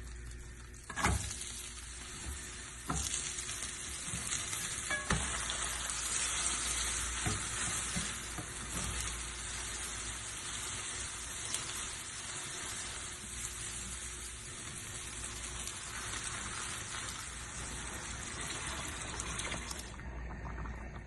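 Food sizzling and frying in melted butter in a pan while it is stirred, with a few knocks of the utensil against the pan in the first several seconds. The sizzling stops shortly before the end.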